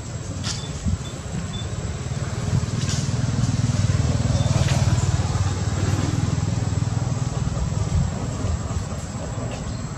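A motor vehicle's low engine rumble, growing louder over a few seconds and then fading.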